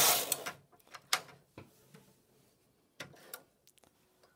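Silver Reed LC2 lace carriage rattling along the needle bed on a transfer row, stopping about half a second in. A few scattered clicks and knocks follow as the machine's carriage and yarn are handled.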